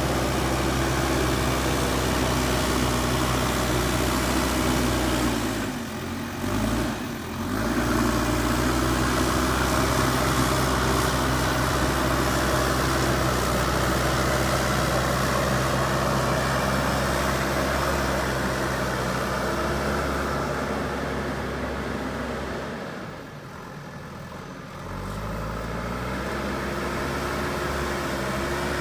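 Diesel engine of a JCB 3DX backhoe loader running steadily while it works soil. The engine sound dips briefly about six seconds in and again near the end, with the pitch sagging and then picking back up.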